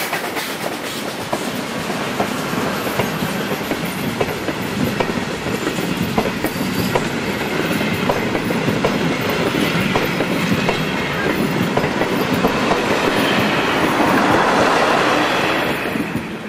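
A train of vintage passenger coaches rolling past, their wheels clicking over the rail joints with the rumble of the bogies.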